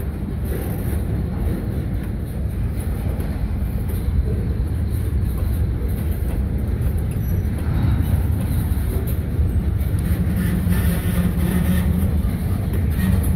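A string of freight gondola cars rolling slowly past on the rails, a steady rumble of wheels on track that grows slightly louder. A low steady hum joins about ten seconds in.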